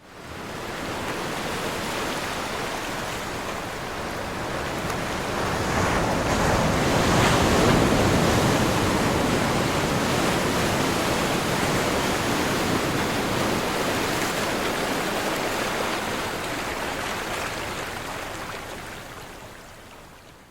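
Ocean waves breaking on a shore: a continuous rush of surf that swells to its loudest about seven or eight seconds in, then slowly fades away near the end.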